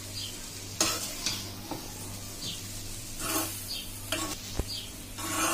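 A metal spoon stirring and turning fried rice in a non-stick kadhai on the heat, in a series of short, irregular scrapes, with a light sizzle and a low steady hum underneath.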